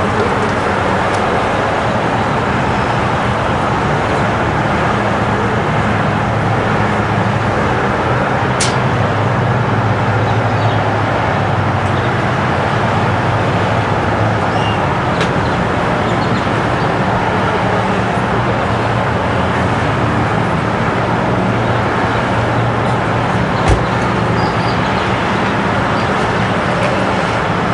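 Steady road traffic noise with a constant low hum beneath it. A sharp click about a third of the way in and a short thump near the end.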